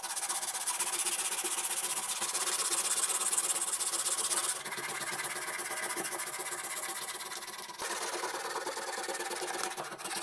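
Sandpaper rubbed quickly back and forth by hand over a weathered apple wood saw handle, a continuous rasping scratch that eases a little about halfway through and picks up again near the end.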